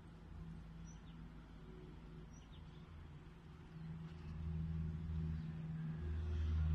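A low, steady engine hum that grows louder from about halfway through, as a motor vehicle approaches. Two faint bird chirps come about one and two and a half seconds in.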